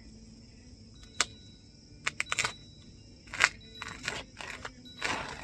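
A run of scattered light clicks and brief rustling sounds: one about a second in, a quick cluster around two seconds, and more toward the end, with quiet between them.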